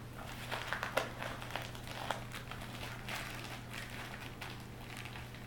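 Clear plastic wrapping crinkling and rustling in short, scattered bits as a packaged triangular bandage is pulled from a first aid kit and handled.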